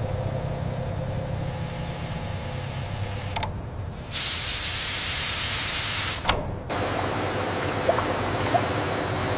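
Steady low machine hum, then about four seconds in a loud hiss like escaping steam or spray for about two seconds, cut off abruptly, followed by a quieter mechanical background with a few faint clicks.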